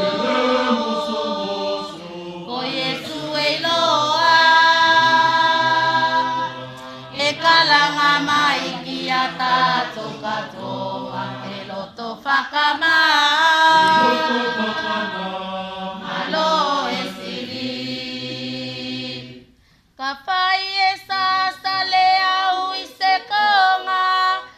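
Youth choir singing a Tuvaluan hymn (pese lotu) in long held notes. It breaks off briefly about twenty seconds in, then the singing resumes in shorter phrases.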